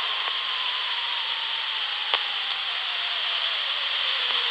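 Steady hiss from a portable weather radio's speaker during a gap in the NOAA Weather Radio broadcast between segments, with a faint whistle slowly falling in pitch and a single click about two seconds in.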